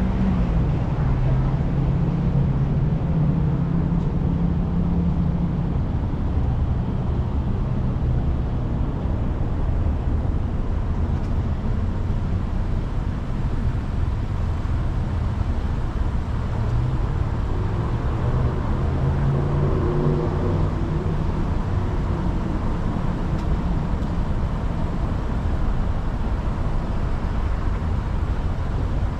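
A car's engine and road noise heard from inside the cabin as a steady low rumble. A deeper hum swells near the start and again about two-thirds of the way through.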